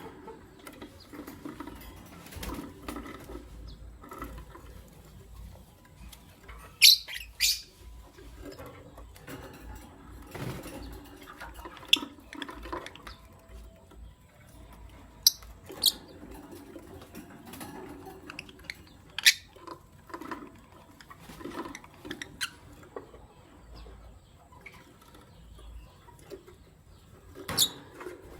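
Lovebirds, a green masked (personata) and a pastel white, giving short, sharp, high chirps every few seconds, the loudest a doubled chirp about seven seconds in. Between the chirps there is soft scattered rustling and wing flutter.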